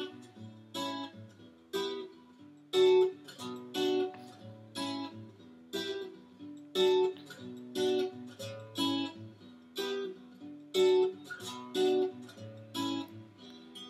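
Acoustic guitar backing track playing an instrumental passage: strummed chords in a steady rhythm, roughly one a second.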